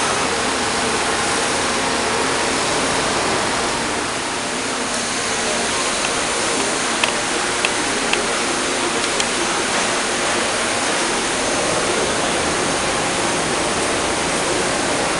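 Mega Machine TR-30NC thread rolling machine running while rolling screw threads: a steady rushing noise with a faint hum, and a few light clicks about halfway through.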